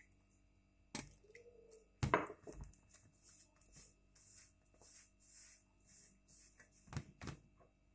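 Fingers rubbing and squeezing oiled refined flour in a steel bowl: a faint rustle repeating about twice a second, with a few sharp knocks against the bowl. The loudest knock comes about two seconds in, and two close together come near the end.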